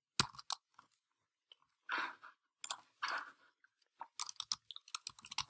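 A few computer mouse clicks just after the start, two short soft rustling noises in the middle, then a quick run of light keyboard key taps near the end.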